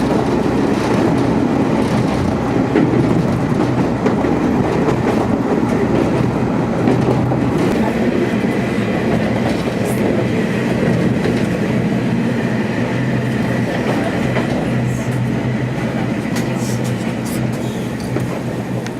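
KiHa 47 diesel railcar running along the line: a steady engine hum under the continuous rumble of wheels on the rails.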